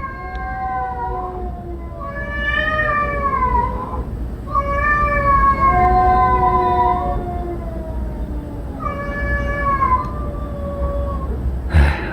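Street cats yowling: about four long, drawn-out, wavering calls one after another, with shrill overtones.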